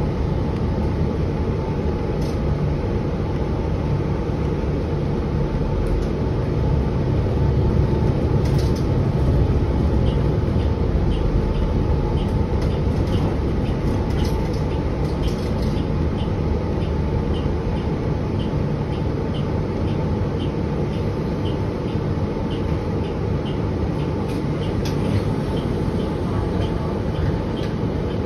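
Cabin noise of a 2023 New Flyer XDE40 hybrid diesel-electric bus under way: a steady low drivetrain and road rumble with a faint steady hum. From about ten seconds in, a light regular ticking comes in at about one and a half ticks a second.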